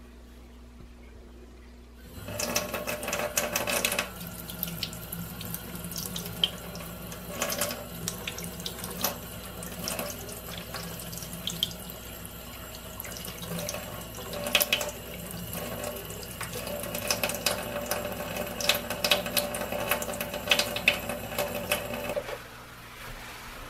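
Kitchen tap running into a stainless steel sink, the water splashing off a knife blade held under the stream as it is rinsed. The flow starts abruptly about two seconds in and stops near the end.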